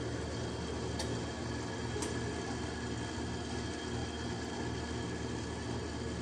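Steady hum of a kitchen appliance's motor or fan, with a faint high whine over it. Two faint clicks come about a second apart near the start.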